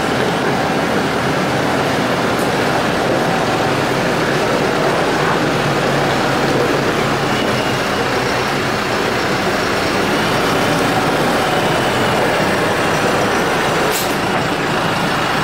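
Case IH Farmall 115U tractor's diesel engine running steadily as the tractor drives slowly up close with a load on its front loader.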